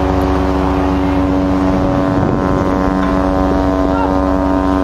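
A steady, unchanging drone aboard a ship: one held pitched tone with its overtones over a low rumble, with wind on the microphone.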